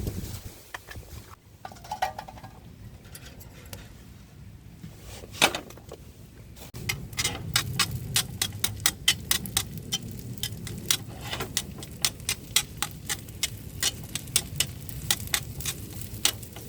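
Raindrops tapping irregularly on a nearby surface. The taps are sparse at first, then pick up to several a second about seven seconds in, over a low rumble.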